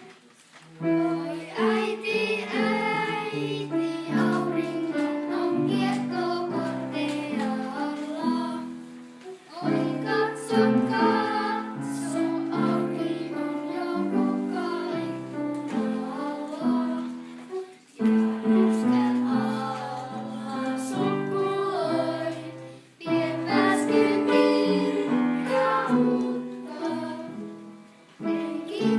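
Children singing a song together with instrumental accompaniment, the music breaking off briefly a few times.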